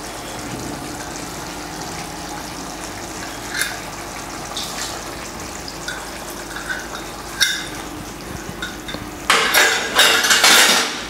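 Chicken stew simmering quietly in a frying pan on a low gas flame, with a few light clinks of a steel cup against the pan. Near the end, thick coconut milk is poured in, a loud splashing pour into the hot pan.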